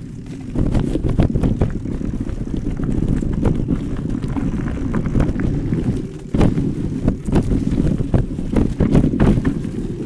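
Specialized Turbo Kenevo SL e-mountain bike riding a dirt forest trail: low tyre rumble and wind buffeting on the microphone, with frequent knocks and rattles from the bike over bumps. It gets louder about half a second in and eases briefly about six seconds in.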